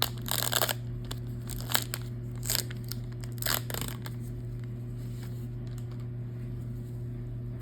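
Trading-card pack wrapper being torn and crinkled open in four short rips over the first four seconds, over a steady low hum.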